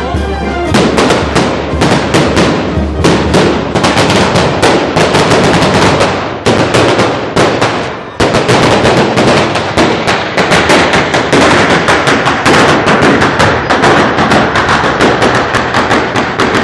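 A long string of firecrackers going off in rapid, continuous cracks, with a brief lull about eight seconds in. Brass band music can be heard in the first second, before the cracks drown it out.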